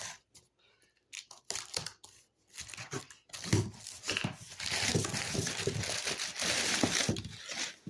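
Cardboard shipping box being opened by hand: a few scattered clicks and scrapes, then from about three seconds in a long stretch of tearing and crinkling.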